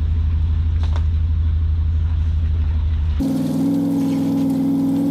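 Pickup truck engine running steadily while towing a loaded trailer, a low drone. About three seconds in the sound changes abruptly to a steadier engine hum with several pitches.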